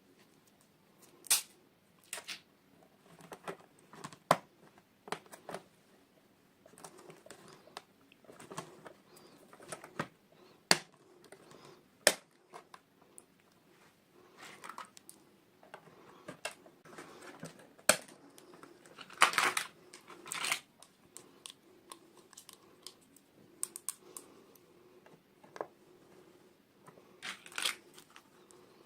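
Hands unboxing small plastic toys: scattered sharp clicks and taps with short bursts of packaging rustling and tearing.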